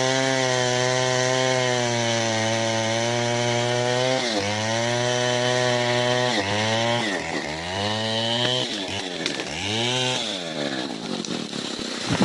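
Stihl MS 070 two-stroke chainsaw cutting mahogany, running steadily under load. After about four seconds its engine speed dips and climbs back several times in quick succession. Near the end the engine note breaks up into a rougher, noisier sound.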